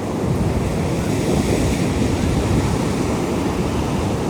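Wind buffeting the microphone over the steady wash of ocean surf, a dense rumbling noise that swells slightly about a second in.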